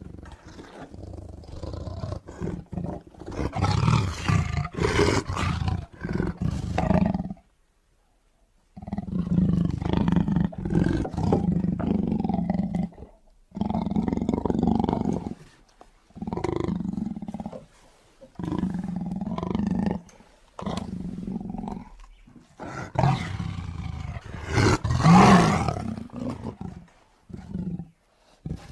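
Deep, rough creature roars, a big-cat-like roaring effect, repeated in long bursts of one to three seconds with short pauses between them.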